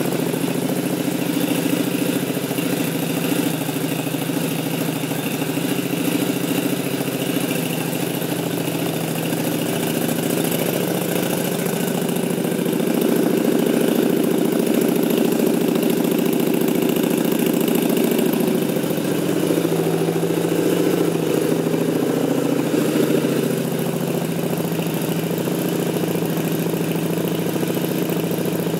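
Yamaha V-Star 1100's air-cooled V-twin engine idling steadily, a little louder for a stretch in the middle.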